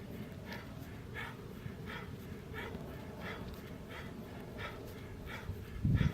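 A person breathing hard and rhythmically during fast bodyweight exercise, about one and a half sharp breaths a second. Heavier low thumps begin near the end.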